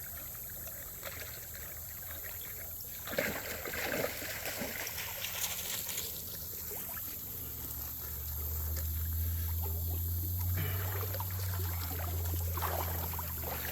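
Creek water trickling outdoors, with irregular crackling and splashing a few seconds in, and a low steady rumble for several seconds in the middle.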